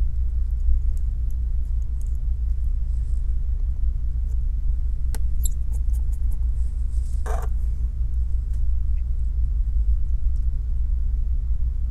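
A steady low background rumble. A few faint light clicks and taps come about five and seven seconds in, from a precision screwdriver and tiny screws on an iPhone 12 display assembly.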